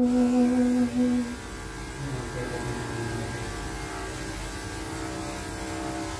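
A held sung note from background music ends about a second in, leaving the steady electric hum of dog grooming clippers running.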